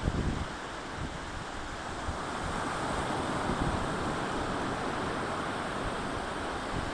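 Atlantic surf breaking and washing up a sandy beach, swelling about two to three seconds in, with wind buffeting the microphone.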